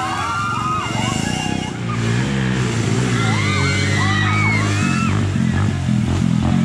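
Dirt-bike engines running on the race track: a low engine drone from about two seconds in that steps up in pitch near five seconds. High warbling tones that rise and fall sound over it at the start and again around three to four seconds.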